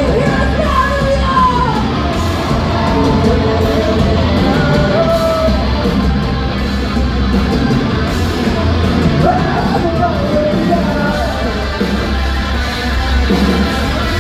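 Live heavy metal band playing loud, with electric guitars, bass and drums, and a sung lead vocal over it.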